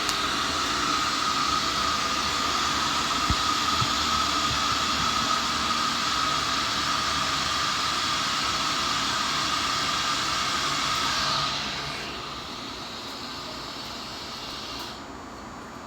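ThyssenKrupp hydraulic elevator power unit with a steady rushing hiss and a thin whine, the sound of oil flowing through the valve as the car is called down. About twelve seconds in it drops to a quieter hiss, and about three seconds later it stops.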